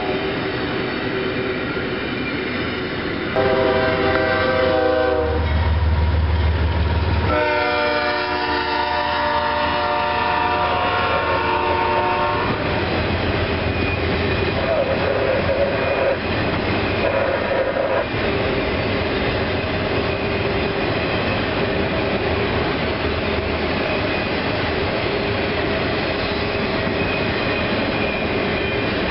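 A train passes close by with passenger cars and autorack freight cars rolling over the rails. A horn sounds in long blasts over a deep rumble from about three to twelve seconds in, then the steady rolling clatter of the cars carries on.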